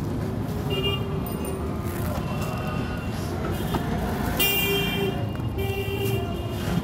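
Roadside traffic rumbling steadily, with vehicle horns tooting in short blasts: once about a second in and twice near the end.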